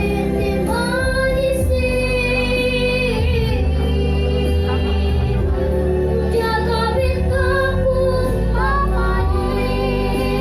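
A schoolgirl singing long, held notes over an instrumental backing.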